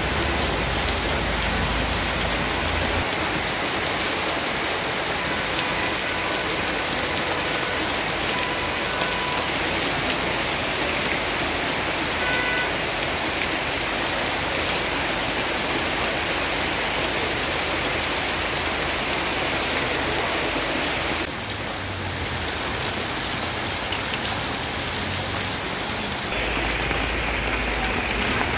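Heavy rain pouring steadily onto pavement, roofs and parked vehicles: a dense, even hiss. A low rumble sits underneath at the start and comes back near the end.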